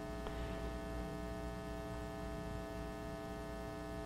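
Steady electrical mains hum with a faint buzz, at a low level.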